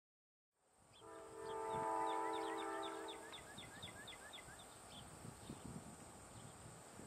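Distant diesel locomotive horn sounding one long blast of about two seconds, starting about a second in, with the faint rumble of the approaching train after it.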